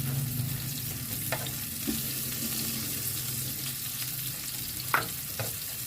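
Onions and garlic sautéing in hot oil in a frying pan: a steady sizzle, with a few sharp clicks of the spatula against the pan as they are stirred, the loudest about five seconds in.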